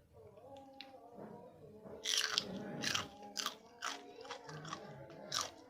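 Biting into and chewing a raw green chilli: crisp crunches begin about two seconds in and come roughly twice a second.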